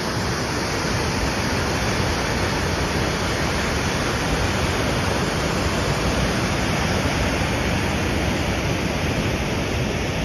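Waterfall rushing over rocks: a loud, steady rush of white water.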